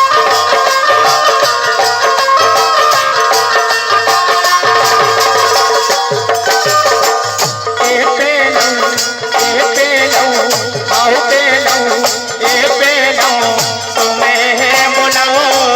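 Instrumental music between verses of a Hindi devotional folk song to the goddess: held chords, a steady drum beat and rattling percussion, with a wavering melody line coming in about halfway.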